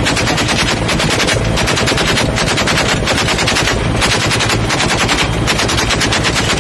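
Machine gun fired from the open door of a flying helicopter: long bursts of rapid shots broken by brief pauses, over the steady low drone of the helicopter.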